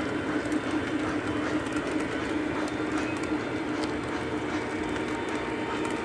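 O gauge three-rail model freight cars rolling past on curved track: a steady rolling rumble with faint clicks as the wheels cross the rail joints, and a steady hum that fades over the first couple of seconds.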